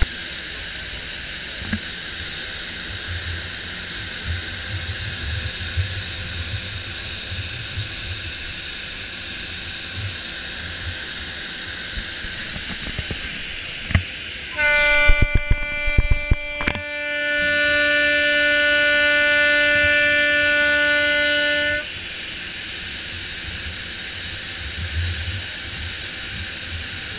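Ship's horn on the fast attack craft R142 Ystad sounding one long blast of about seven seconds, a steady pitched note rich in overtones, starting about halfway through. Under it, the boat's engines and the wind give a steady rush, and low buffeting thumps hit the microphone as the blast begins.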